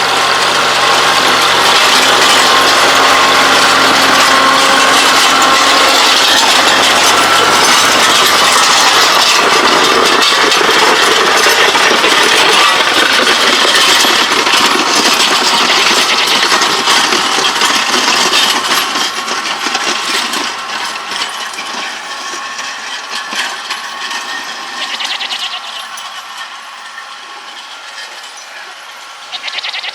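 Kioti CK2610 compact diesel tractor running, with a steady, dense metallic clatter and rattle. It grows gradually quieter from about two-thirds of the way through.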